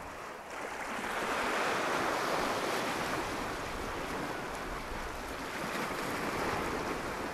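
Sea surf washing against a rocky shore, swelling about half a second in and again near the end, with some wind on the microphone.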